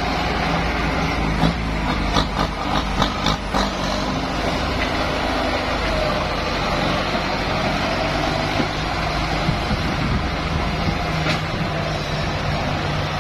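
Kubota M8540 tractor's four-cylinder diesel engine running steadily under working load. Several sharp metallic knocks come between about one and a half and four seconds in.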